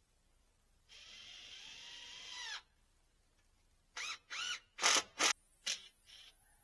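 Small power drill whirring for about a second and a half, its pitch dropping as it winds down. Then a few short, loud bursts follow: brief trigger pulls and knocks.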